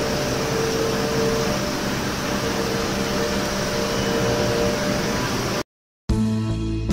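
CNC milling machine spindle running at 18,000 rpm while its end mill cuts at high feed. It makes a steady, noisy hum with a few steady tones in it. The sound cuts off suddenly about five and a half seconds in, and strummed acoustic guitar music starts about half a second later.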